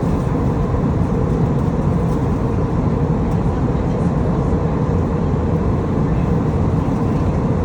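Steady drone of an airliner cabin in flight: the even rush of engines and airflow.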